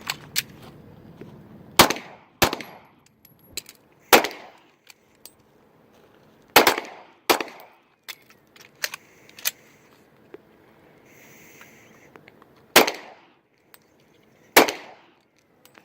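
Pistol shots fired at a steady, unhurried pace, several of them, some in pairs less than a second apart, with a long gap in the middle, each crack followed by a short echo. Fainter clicks fall between the shots.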